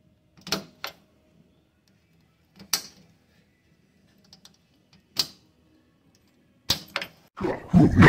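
A golf cart's key switch clicking sharply as a key is turned through its positions: single clicks spread a second or two apart, with two quick ones near the end. A louder rushing noise starts just before the end.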